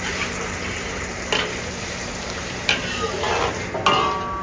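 Metal ladle stirring chicken in a bubbling sauce in a metal wok, over a steady sizzle. The ladle knocks against the wok three times, the last knock leaving a short metallic ring.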